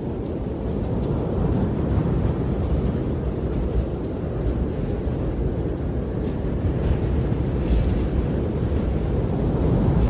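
Strong wind blowing, a steady low rushing noise that swells and eases slightly with the gusts.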